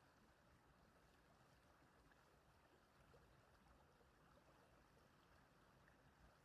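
Very faint, steady running water of a small stream, barely above silence.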